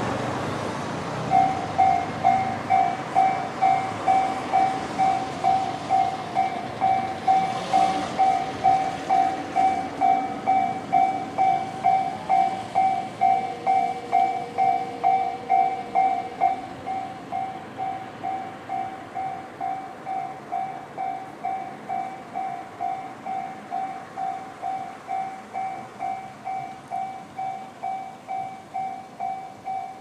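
Japanese railway level-crossing alarm, the electronic bell type known as Tobu sound C, starting about a second in and ringing a steady repeating ding about two and a half times a second. It is the warning that a train is approaching and the crossing barriers are coming down. It turns a little quieter after about sixteen seconds.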